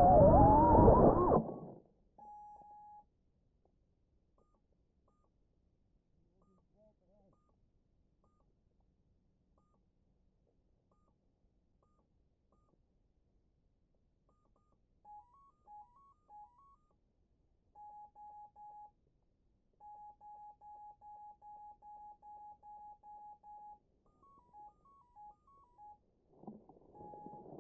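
FPV quadcopter's motors whining with changing pitch, cut off about a second and a half in as the drone crashes into reeds. After long quiet, the downed drone beeps: a short rising three-note tune twice and long runs of short single-pitch beeps, about three a second. Near the end, rustling as it is picked up out of the reeds.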